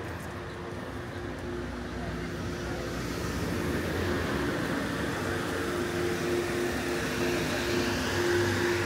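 A motor vehicle's engine running with a steady hum and growing louder as it approaches.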